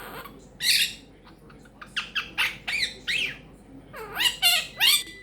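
Quaker parrot (monk parakeet) squawking and chattering: one loud squawk less than a second in, a run of short chirping calls about two seconds in, and a louder burst of calls near the end.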